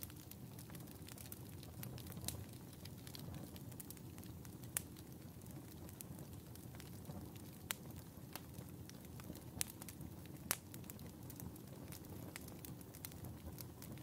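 Wood fire burning in a fireplace: a low, steady rumble of flames with scattered sharp crackles and pops, the loudest few standing out about a third, half and two-thirds of the way through.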